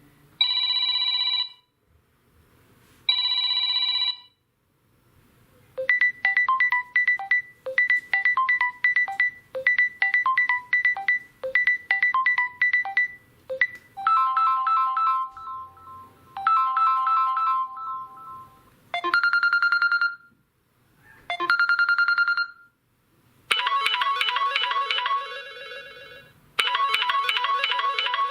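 Samsung Galaxy M01 stock ringtones played one after another: about five different short electronic tunes of clear pitched tones, each repeating its phrase for a few seconds before a short gap and the next.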